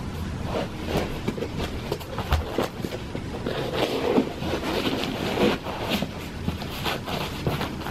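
Rustling and soft knocks of chunky leather lace-up boots being handled close to the microphone: laces pulled and a socked foot slid into a boot on carpet.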